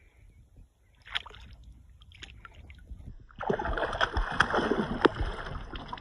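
Hooked lake trout thrashing at the surface beside a canoe, with two brief splashes early on and then about two seconds of loud, churning splashing from a little past the middle.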